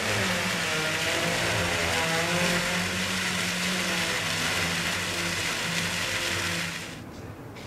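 Fountain water splashing in a steady rush, with a low wavering hum beneath it; both drop away sharply about seven seconds in.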